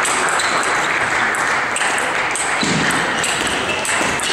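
Table tennis ball clicking off rubber bats and the table in a quick rally, over the steady noise of a busy hall with other matches going on.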